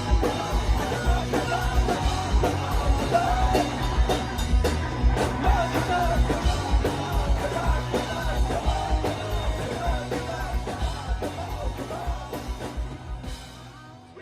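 Live rock band playing at full volume: a steady drum beat with guitars, bass and some singing. Near the end the playing dies down and rings out.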